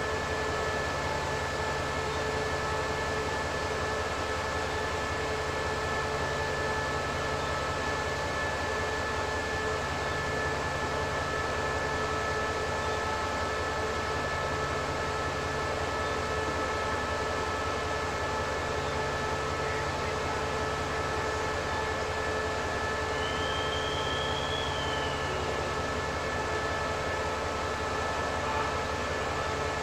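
SRT CDA5B1-class diesel-electric locomotive idling at a standstill: a steady engine hum with several constant whining tones, unchanging throughout. A brief faint high chirp comes about three-quarters of the way in.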